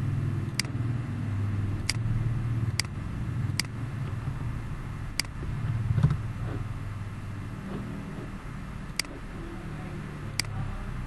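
Computer mouse clicking about seven times at irregular intervals, over a low steady rumble in the background.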